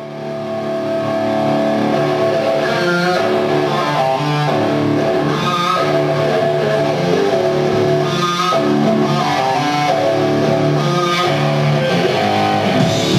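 Music led by guitar, with held chords that change every second or so at a steady loudness.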